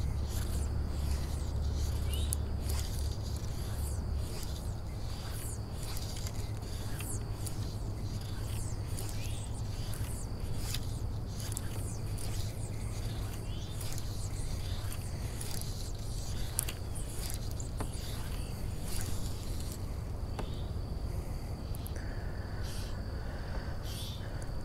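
Steady high insect buzz with many short, sharp bird chirps and clicks scattered through it, along with the scrape of fly line being stripped in and cast.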